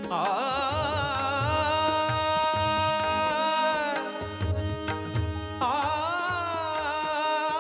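Indian devotional song music: a long, wavering melody held on sustained notes without words, over a steady hand-drum rhythm, with a fresh phrase entering about two-thirds of the way through.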